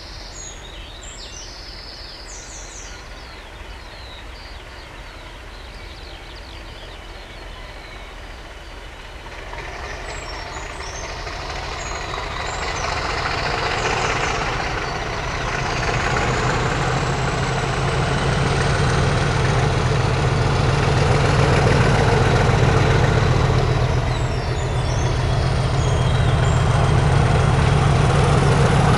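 Birdsong over a quiet rural background, then from about nine seconds in a Class 50 diesel locomotive's English Electric V16 engine grows louder as the locomotive approaches under hard power up a gradient, with a deep engine note and a high whistle above it.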